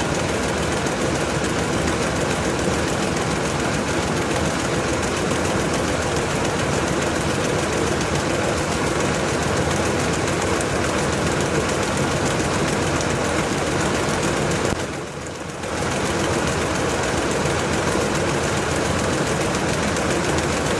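LG TurboDrum top-loading washing machine running with a full load of bedding: a steady, loud mechanical noise that dips briefly for about a second roughly three-quarters of the way through.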